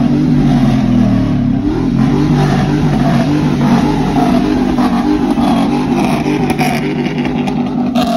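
Truck engines revving as lifted trucks and SUVs cruise the track on large rims.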